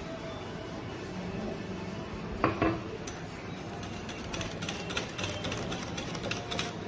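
A utensil stirring in a bowl of thick spicy mayonnaise dressing. There is one clink against the bowl about two and a half seconds in, then rapid, irregular clicking and scraping as the sauce is mixed.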